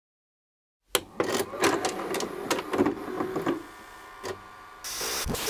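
VHS cassette pushed into a front-loading VCR: the loading mechanism takes it with a rapid run of clicks, clunks and motor whirring. It goes quieter, gives one more click about four seconds in, and a short burst of hiss comes near the end.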